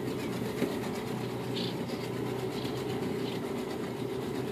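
Steady low hum of a small boat's motor running at low speed, with a few short high chirps from swallows.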